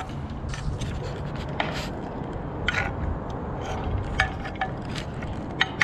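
A utensil scraping and knocking in a cooking pot as chunks of meat are stirred, in scattered short strokes over a steady low rumble.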